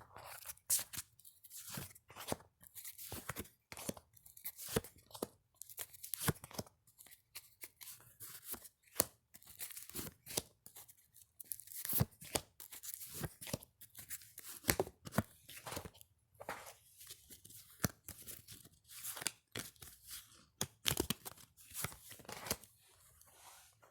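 A deck of tarot cards being shuffled and handled by hand: a long, irregular run of crisp papery snaps and flicks.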